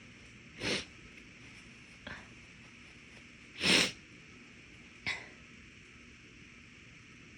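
A woman's short, breathy sounds between induced sneezes: a quick one under a second in, a faint click about two seconds in, a louder one near the middle and a brief one about five seconds in, none as big as a full sneeze.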